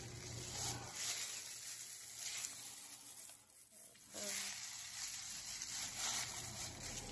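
Soft wet squishing and crinkling of a thin plastic glove as a hand squeezes and stirs soaked sea moss in a bowl of water, with a brief lull about halfway through.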